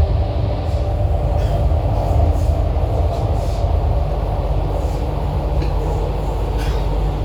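MTR Island Line Q-Train running between stations: a steady rumble of steel wheels on rail, with the steady hum of the traction motors and a few faint ticks from the track.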